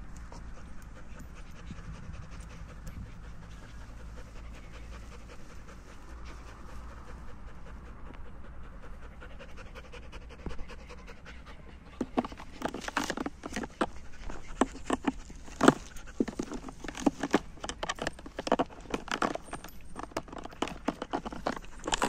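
German Shepherd panting, then from about halfway chewing a plastic drink bottle: a rapid, irregular run of sharp crinkling crackles as its teeth crush the plastic.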